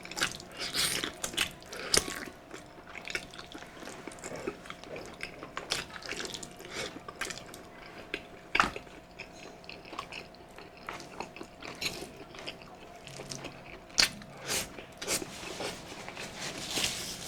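Close-miked chewing and biting while eating balbacua, a beef stew, with irregular wet clicks and smacks of the mouth.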